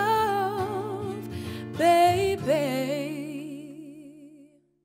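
Female voice singing over a strummed acoustic guitar, ending on a long held note with vibrato while the last guitar chord rings and fades out near the end.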